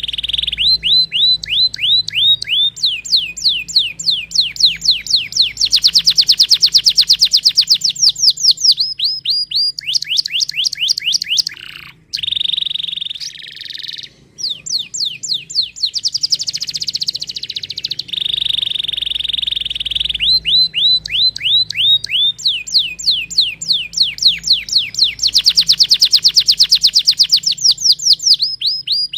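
Domestic canary singing: long, rapid trills of repeated falling notes, broken now and then by a steady held whistle.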